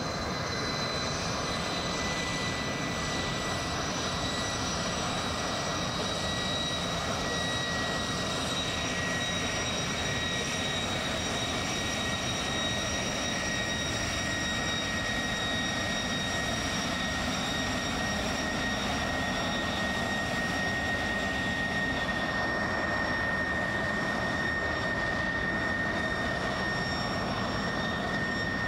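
Canadair T-33 jet trainer's Rolls-Royce Nene turbojet running steadily: a continuous rush with a high whine on top that sinks slightly in pitch.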